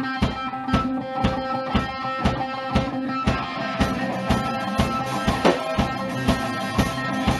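Live rock band opening a song: electric guitar and drum kit playing over a steady beat.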